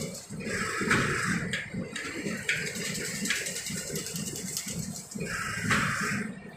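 Automatic chain-link fence machine running with a steady rhythmic mechanical beat. The wire mesh gives metallic rattles as it is wound onto the roll, loudest about a second in and again near the end.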